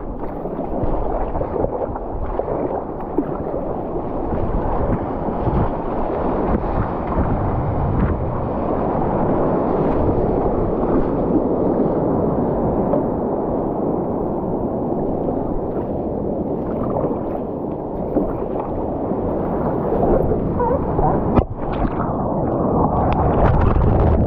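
Whitewater rushing and splashing around a stand-up paddleboard riding a breaking wave, a steady churning that grows louder through the ride. Near the end there is a sudden sharp break, then louder splashing as the rider falls into the water.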